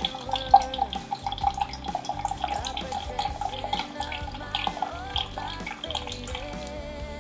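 Dark liquid poured from an upturned bottle into a plastic measuring jug: a continuous splashing, bubbling stream as the jug fills. Background music plays alongside.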